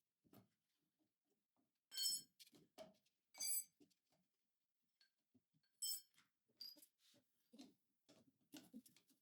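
Faint metal-on-metal clinks of hand tools against steel parts, three short ringing clinks among scattered light knocks and taps.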